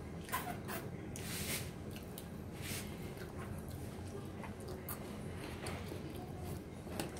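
Someone eating fried chicken by hand: faint, scattered biting and chewing noises over a steady low hum.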